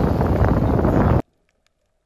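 Wind buffeting the microphone, a dense low rumble that cuts off suddenly a little over a second in. Near silence follows, with a few faint ticks.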